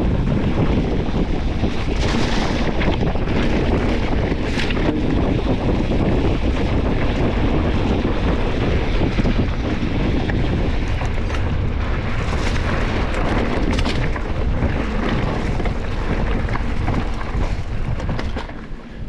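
Wind buffeting the microphone of a camera on a mountain bike in motion: a loud, steady rumble, with a few short sharp rattles about two, four and a half, twelve and fourteen seconds in.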